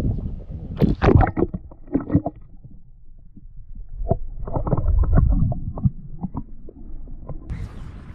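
Water splashing and sloshing around a camera dipped into the river, turning to muffled underwater rumbling and dull knocks once the microphone is under the surface.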